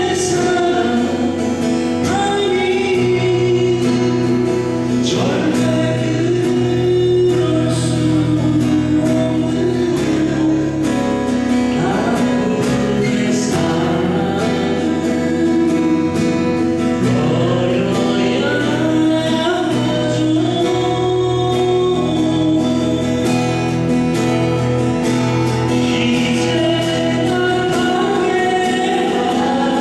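Music: a song sung over guitar accompaniment.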